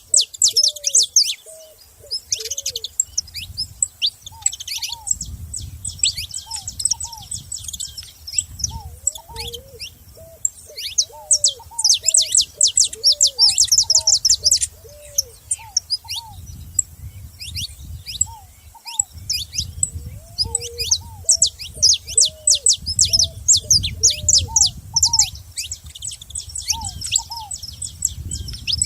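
Saffron finches chirping and calling in a dense chorus of quick, high, downward-sweeping notes, busiest in bursts. Underneath runs a lower call of short arched notes repeated about once a second, along with a low rumble that comes and goes.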